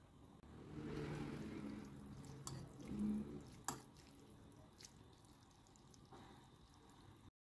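A metal fork stirring and lifting instant noodles in broth in a ceramic bowl: soft wet sloshing with a few light clicks of the fork against the bowl, the sharpest about halfway through.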